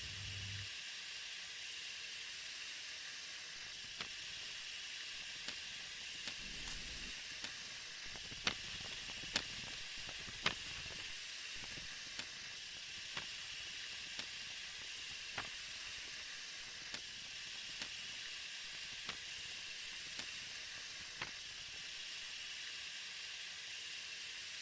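A steady hiss with scattered sharp crackles and pops at irregular intervals, a few louder ones clustered about a third of the way in.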